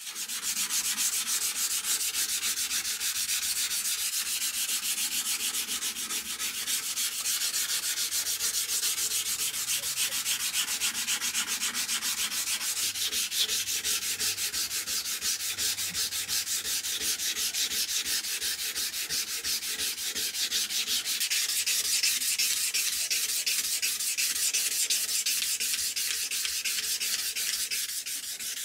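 Sandpaper rubbed back and forth by hand along a wooden knife handle, a steady scratchy hiss of quick, even strokes.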